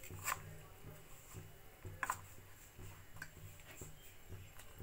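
Metal spoon stirring thick gram-flour batter in a bowl, with a few faint, scattered clicks as the spoon knocks against the bowl.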